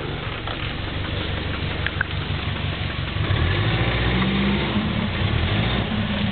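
Subaru GL turbo's EA82 flat-four engine running, then revving up louder about three seconds in, with a loud rod knock: the engine is on its way out.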